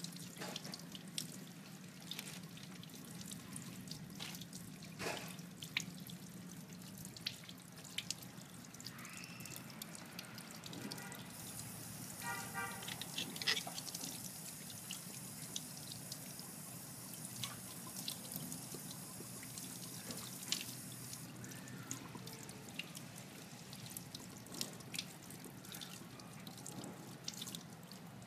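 Kitchen tap running into a stainless steel sink while a squid is rinsed and rubbed clean by hand under the stream, with splashing, dripping and many small clicks and knocks. A steady low hum sits underneath.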